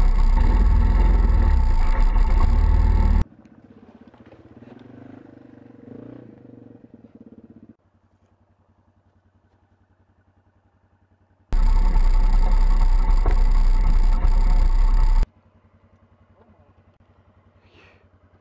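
An ATV engine running loud and close, as picked up by a camera mounted on the machine. It comes in two stretches of about four seconds that start and stop abruptly, with much quieter sounds and then near silence between them.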